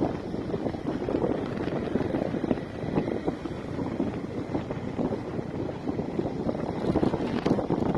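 Wind buffeting the microphone on a moving motorcycle, a rough rush that flutters up and down, with the motorcycle's riding noise beneath it.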